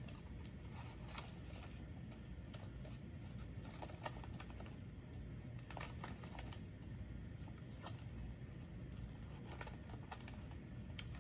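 Faint rustling and crinkling of a paper cutout and sticky tape being handled and pressed together, with scattered small clicks over low steady room noise.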